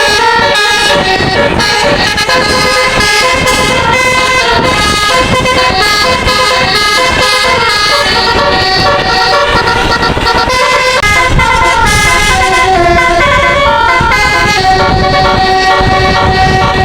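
A bus's telolet multi-tone musical air horn playing a tune, its notes changing in steps, with rumbling noise underneath.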